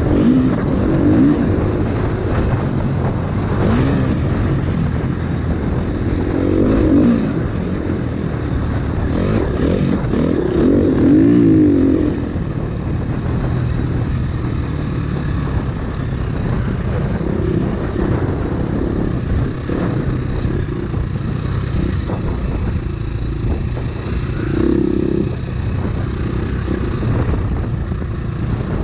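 KTM 350 EXC-F's single-cylinder four-stroke engine running under way on a dirt bike, its pitch rising and falling again and again as the throttle is opened and closed. The strongest rev comes about ten seconds in.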